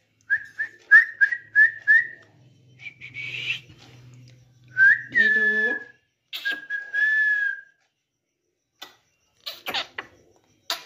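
Rose-ringed parakeet making whistled calls: a quick run of about six short chirps, then a longer call and a steady held whistle.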